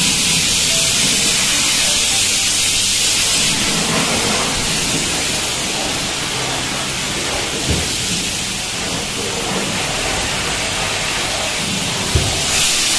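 Water jet from a car-wash hose wand spraying against a car's body and wheels: a steady hiss of spray, a little louder in the first few seconds.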